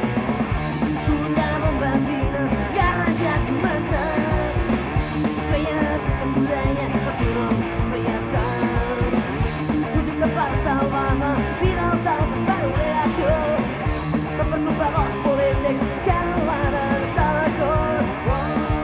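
Rock band music from a demo cassette: electric guitars, bass and drums playing with a steady beat.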